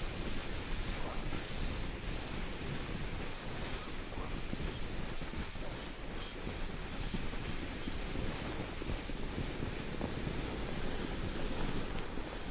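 Wind buffeting the microphone: a steady rushing noise, heavy and gusty in the low end.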